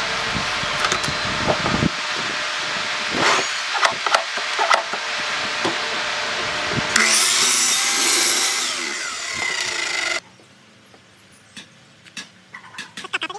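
Sliding compound miter saw cutting a softwood board: a steady loud running noise with a few knocks, then a harsher, higher cutting noise for about three seconds as the blade goes through the wood, stopping abruptly about ten seconds in. After it, faint scattered clicks and taps.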